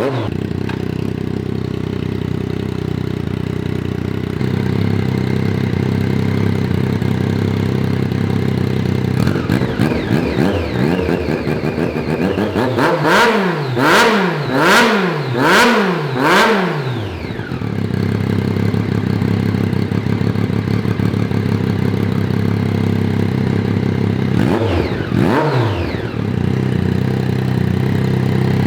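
2009 Triumph Daytona 675's three-cylinder engine idling steadily, with four quick throttle blips about halfway through and one more near the end.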